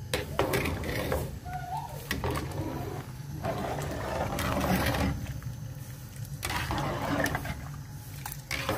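Metal ladle stirring a large aluminium pot of broth, scraping and knocking against the pot wall with the liquid sloshing, in irregular spells.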